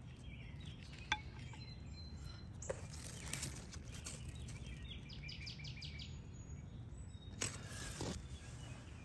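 Outdoor background: a steady low hum with faint bird chirps, including a quick run of short repeated high notes about five seconds in. A few light clicks and rustles of handling break in, the loudest near the end.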